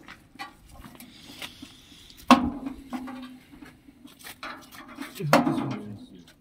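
Metal clinks and knocks from working on a chaff cutter, its cover and bolts being fitted and locked down, with two louder clanks a little over two seconds in and near the end.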